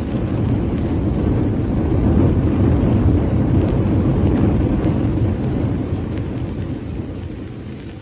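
Radio-drama sound effect of a rocket ship in flight: a deep rushing rumble that swells over the first couple of seconds, then fades away over the last few, bridging to the next scene.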